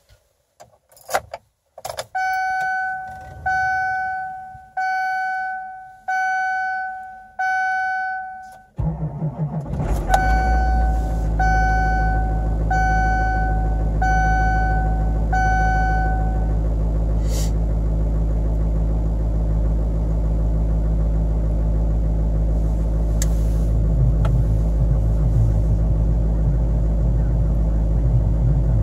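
2008 LMM Duramax 6.6 L V8 turbo-diesel cold-started at 8 degrees, heard from inside the cab. Keys rattle and a dashboard warning chime repeats about once every 1.3 seconds. The engine cranks briefly about nine seconds in, catches, and settles into a steady idle while the chime keeps going for several more seconds.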